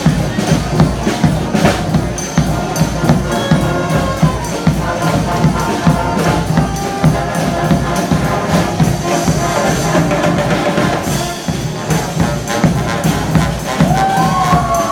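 Street brass band playing, with drums and percussion keeping a steady beat under the horns.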